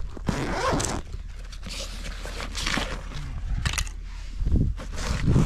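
Zippers on a Savage Gear fabric tackle bag being pulled open and shut in several short strokes, with fabric handling noise and a couple of low bumps near the end.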